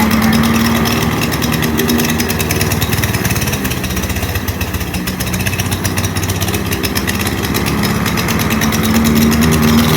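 Gas push lawn mower engine running steadily under load while cutting grass, growing louder near the end. It is an old, heavily smoking mower that the filmer thinks needs a new spark plug.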